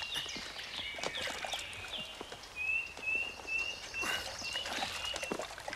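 Animal calls outdoors: short high chirps, with a quick regular run of them in the middle, over scattered knocks.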